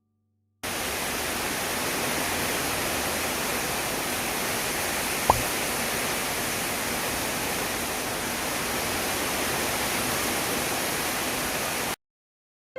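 Steady hiss of heavy rain that starts and stops abruptly, with a single sharp tick about five seconds in.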